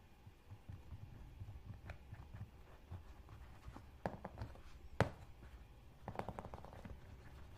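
Hand-work noises on a leather wallet: soft rubbing along the wallet's edge, then scattered small clicks as tools are handled. There is one sharp tap about five seconds in and a quick run of small clicks a second later as a wooden edge burnisher is taken up and worked along the edge.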